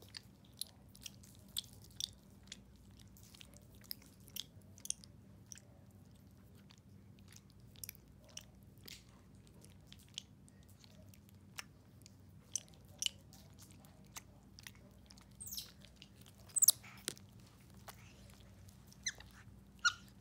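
A white-faced capuchin monkey licking and gnawing a hard lollipop: irregular wet mouth clicks and smacks, with a few louder sharp clicks about three-quarters of the way through.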